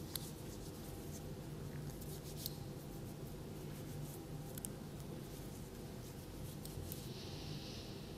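Faint scattered clicks and rustles of small objects being handled, over a steady low hum, with a short soft hiss near the end.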